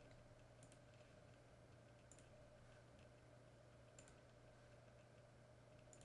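Near silence over a low steady hum, with four faint computer mouse clicks spread through it, each a quick press-and-release pair.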